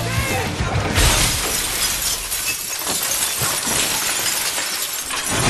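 A large multi-pane glass window shatters as a BMX rider crashes through it about a second in. A long spill of breaking and tinkling glass shards follows.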